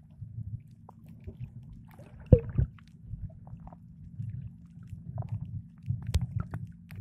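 Muffled underwater sound: a low, uneven rumble with scattered sharp clicks and knocks, the loudest a pair of knocks about two and a half seconds in and another near six seconds.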